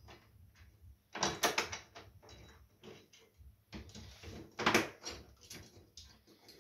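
Clicks and knocks of a TV and its metal swing-arm wall mount being handled while a mounting bolt is worked by hand into the back of the TV. Two louder clusters of knocks, about a second in and near five seconds.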